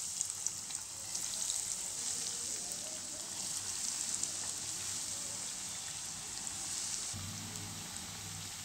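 Crumb-coated fish fingers deep-frying in hot oil: a steady sizzle with light crackling. About seven seconds in the sizzle softens and a low steady hum comes in under it.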